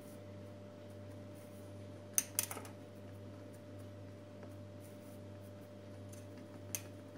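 Hands rolling soft dough into a long finger on a granite countertop: a faint rubbing of palms and dough on stone, with a few sharp taps about two seconds in and another near the end, over a steady low hum.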